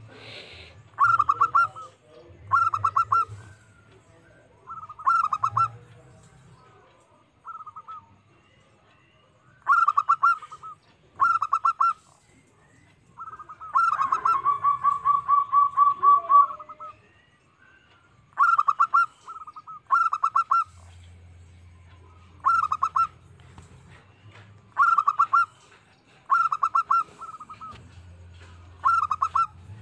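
Zebra dove (perkutut) cooing: short phrases of quick staccato coos repeated every second or two, with one longer run of rapid, evenly spaced coos lasting about three seconds around the middle.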